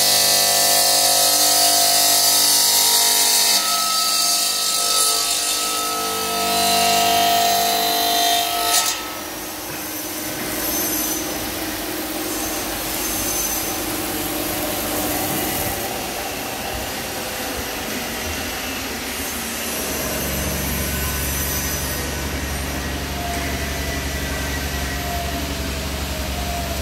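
CNC five-axis bridge saw's blade cutting a stone slab: a loud hissing grind over a steady motor whine. About nine seconds in the cutting sound drops off sharply to a quieter, even machine noise, and a low hum comes in around twenty seconds.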